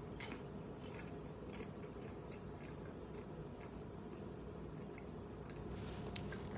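A person chewing popcorn: faint crunches and mouth clicks scattered through, more of them near the end, over a steady low room hum.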